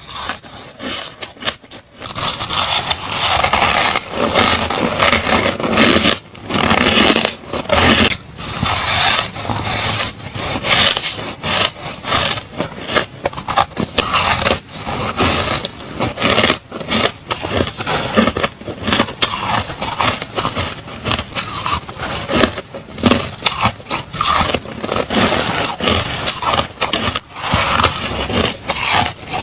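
Ice being bitten and crunched between the teeth close to the microphone: a dense run of crunches with brief pauses, louder from about two seconds in.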